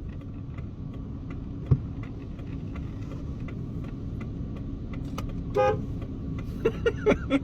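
Steady engine and road noise inside a moving truck's cab, with a brief car-horn toot about five and a half seconds in.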